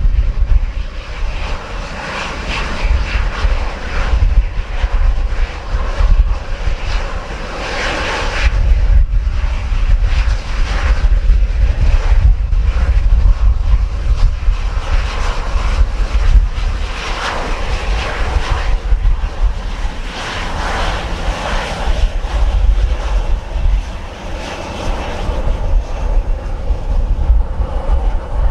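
Airliner engines running at takeoff power, with strong gusty wind buffeting the microphone as a deep rumble underneath.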